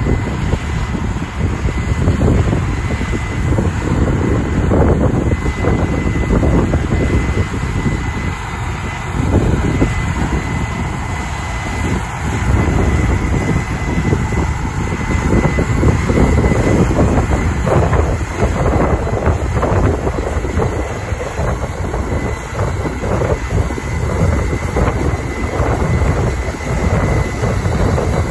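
Case IH 8250 Axial-Flow combine on tracks running under load while harvesting corn: a steady engine and threshing-machinery drone with a continuous high whine. Wind buffets the microphone.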